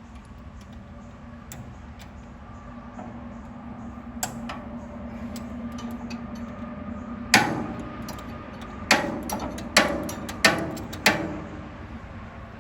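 Metal clanking against the steel housing of a chipper/shredder: a few light clicks, then five sharp metallic strikes in about four seconds, each ringing briefly.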